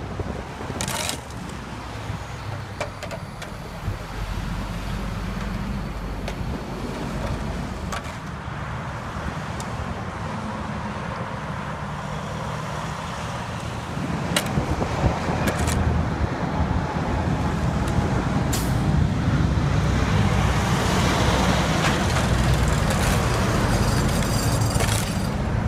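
Road work-zone noise: truck engines running and interstate traffic going by, with a few sharp knocks. It grows louder a little past halfway.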